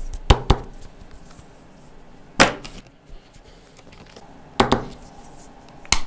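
Sharp plastic clicks and taps of jumbo felt-tip markers: a cap snapping on with two quick clicks just after the start, then single knocks about two and a half seconds in and near five seconds as markers are put down and picked up, and a last sharp click as a cap comes off.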